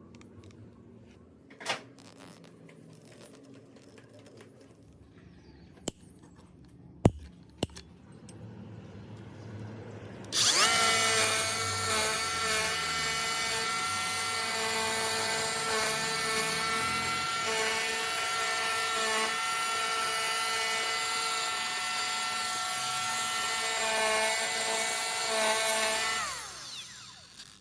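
A few sharp clicks and knocks, then a handheld angle grinder is switched on and runs steadily at full speed with a high whine for about fifteen seconds. It is then switched off and spins down, its pitch falling away.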